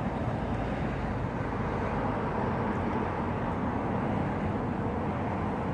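Steady background rumble with no distinct events, the kind of ambient noise heard outdoors near traffic.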